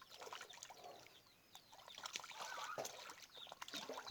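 Water trickling and splashing in a fish pond, with small birds chirping.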